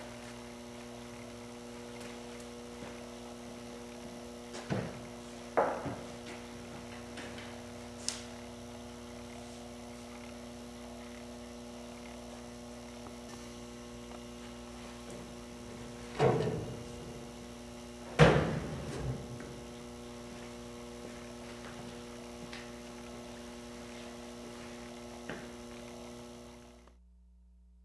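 Steady electrical hum, with a few short knocks and thumps over it; the two loudest thumps come a little past the middle.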